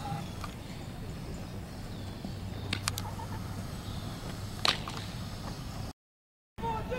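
Sharp smacks of a softball hitting a leather fielder's glove, a quick pair about a third of the way in and a louder single catch about two-thirds in, over steady outdoor background noise. The sound drops out completely for about half a second near the end.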